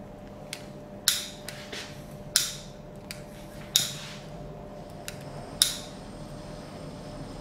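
Four sharp strikes spaced a second and a half or so apart, each with a short ringing tail, with a few fainter clicks between them.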